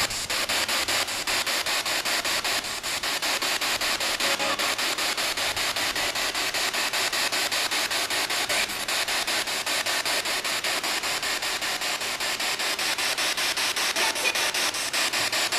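Spirit box sweeping through radio stations: steady static hiss chopped by quick, even clicks several times a second. The investigators hear fragments in it as a voice saying "Andy" and "That's it".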